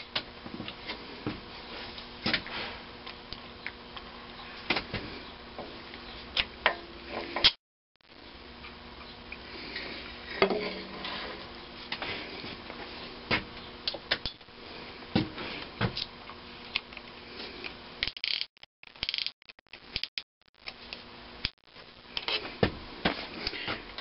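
Irregular light metallic clicks and clinks as a steel band-type piston-ring compressor and piston are handled and worked into a cast-iron cylinder bore, over a faint steady hum. The sound drops out completely twice, briefly.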